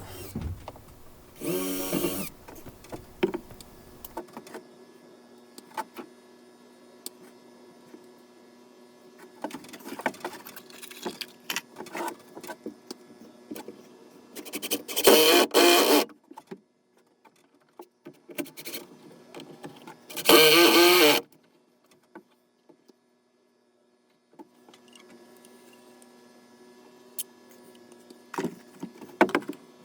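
Woodworking sounds: a few short bursts of a power tool, each about a second long, between scattered knocks and clicks, over a faint steady hum.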